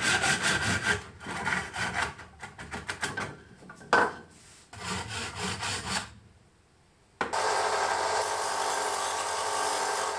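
Hand saw cutting through a thick bamboo cane in quick back-and-forth strokes, with a sharp click near four seconds. From about seven seconds in, a bench belt sander runs steadily as the cut end of the bamboo is ground against it.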